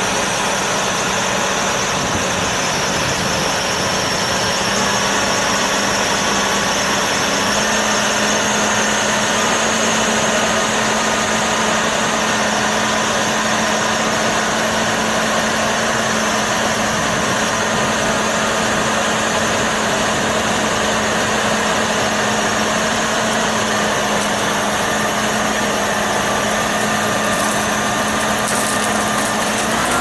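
Engine of a truck-mounted tree-service crane running steadily while it holds a hanging section of trunk. Its low hum steps slightly higher about seven seconds in.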